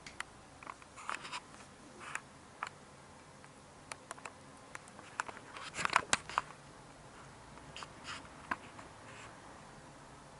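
Soft scattered rustles and clicks of small kittens crawling and scrabbling over bed sheets, with a cluster of louder clicks about six seconds in.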